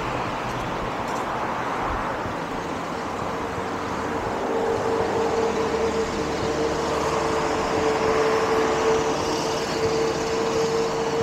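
Steady city traffic noise, with a steady humming tone joining about three seconds in.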